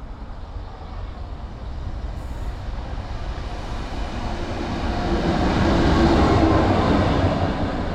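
Class 66 diesel-electric locomotive, its two-stroke V12 diesel engine running, travelling light engine through the station. It grows steadily louder to a peak about six seconds in, then begins to ease off as it passes.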